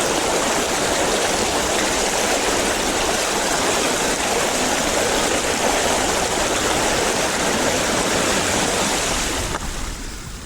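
Floodwater washing around a recumbent trike's wheels as it is ridden through deep water: a steady, loud wash that cuts off suddenly near the end.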